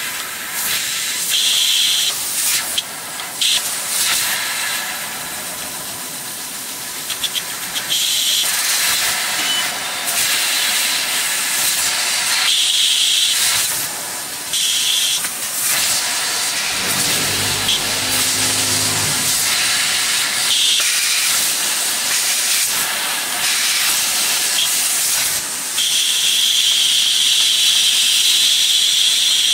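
500 W fiber laser cutting head cutting 1 mm titanium plate: loud, steady hiss of assist gas from the nozzle, cutting off briefly and starting again many times between cuts. A high whistle comes and goes, longest near the end, and a low hum sounds for a couple of seconds midway.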